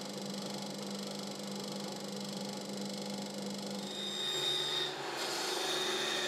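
Bench drill press running and boring into a small piece of hardwood, a steady motor hum with a high whine. About four seconds in, it gives way to a small benchtop saw cutting the drilled piece.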